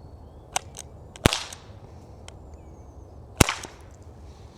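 Six Needler air gun firing steel darts: two sharp cracks about two seconds apart, the first about a second in, each with a short tail, and a lighter click shortly before the first.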